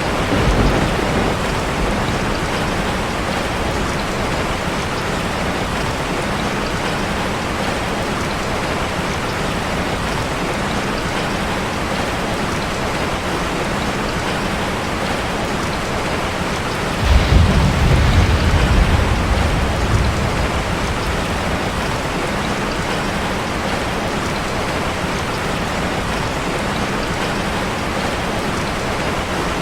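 Steady rain falling on a street, an even hiss throughout. About two-thirds of the way in, a low rumble of thunder swells for a few seconds.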